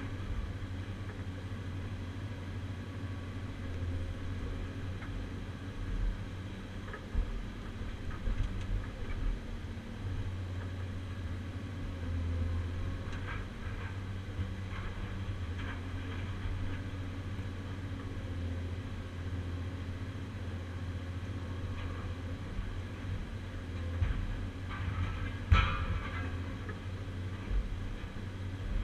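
Cat 345C UHD excavator's diesel engine and hydraulics running steadily, heard from inside the cab. A few knocks come as the shear handles scrap steel, the loudest about 25 seconds in.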